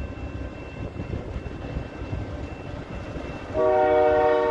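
Freight diesel locomotive's air horn sounding a chord of several steady notes, starting suddenly about three and a half seconds in and far louder than the low rumble beneath it.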